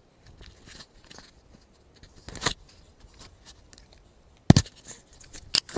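Camera handling noise: dry grass brushing and crackling against the camera, with scattered clicks and a sharp knock about four and a half seconds in, then another near the end.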